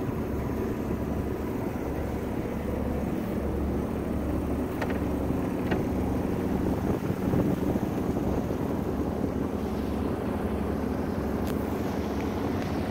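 Sailboat's Yanmar inboard diesel running steadily while motoring, with water rushing along the hull and a few light clicks.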